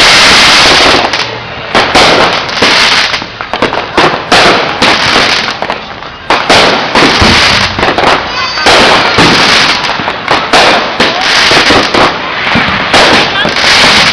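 Fireworks going off in rapid, overlapping loud bangs and crackles, a dense barrage with hardly a pause.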